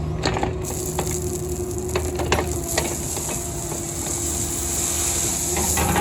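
Cat 305 mini excavator's diesel engine running steadily, with scattered clinks and knocks of gravel being scooped and dumped.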